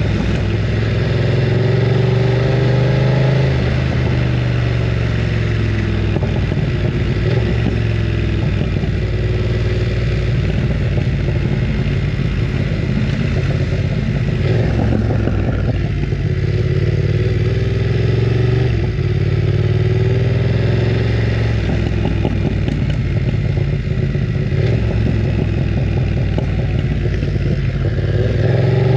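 BMW F900 R's parallel-twin engine running loud under way, its revs rising and falling as the bike accelerates and eases off.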